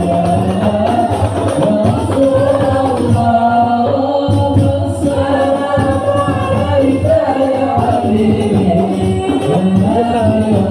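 Sholawat, Islamic devotional songs praising the Prophet, sung to a melody over frame drums (rebana) beating a steady rhythm.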